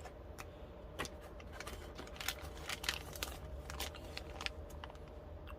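Scattered light clicks and taps from handling the boxed set of precision screwdrivers, over a steady low hum.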